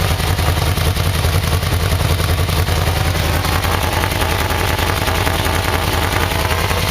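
Yamaha VMax V4 engine idling steadily. The exhaust runs through a stock muffler with 5/16-inch holes drilled in it, which makes it quite a bit louder.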